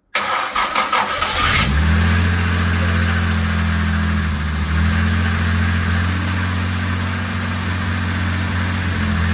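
Jaguar E-Type Series 2's 4.2-litre straight-six cranking on the starter for about a second and a half, then catching and running steadily on choke: its first start after a complete rebuild.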